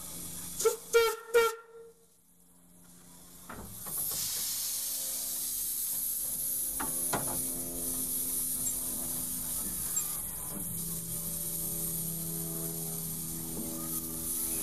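Steam hissing steadily from the 1899 Porter 0-4-0 steam locomotive, heard in its cab, with a low steady hum beneath it and a couple of knocks. Near the start come three short loud sounds, then a brief drop to near silence before the hiss builds.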